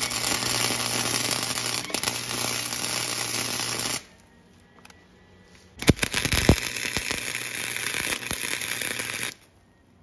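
Wire-feed (MIG) welder tack-welding steel bumper plates: two runs of crackling arc, the first about four seconds and the second about three and a half seconds, with a short pause between. The second run starts with a couple of sharp pops.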